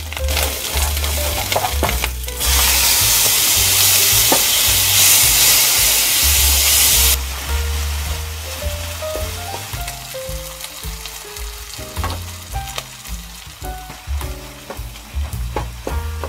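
Onion and then tomato frying in oil in a nonstick wok, stirred with a wooden spoon. About two and a half seconds in, a loud, even sizzle lasts some five seconds and stops abruptly; after that the frying is quieter, with scattered clicks of the spoon.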